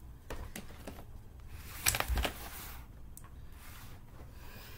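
Handling noises of someone moving close to the recording device: rubbing and shuffling, with a loud knock and a thump about two seconds in and a few lighter clicks.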